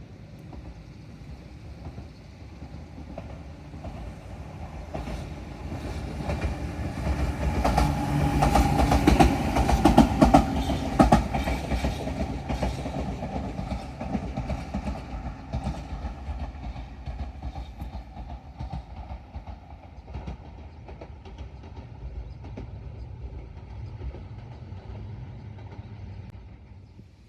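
An electric commuter train passing on the track. Its rumble builds, peaks with rapid clickety-clack of the wheels over the rail joints about eight to eleven seconds in, then fades slowly as it moves away.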